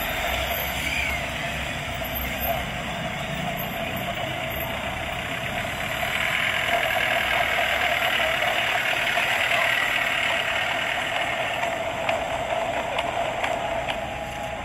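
Motorcade vehicles driving past: escort motorcycles and then a Land Rover Defender, with a steady run of engine noise that grows louder from about halfway through as the Land Rover passes close.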